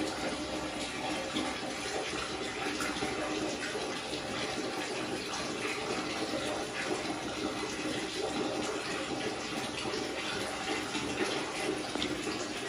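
Water running steadily from a tap and splashing onto a tiled floor.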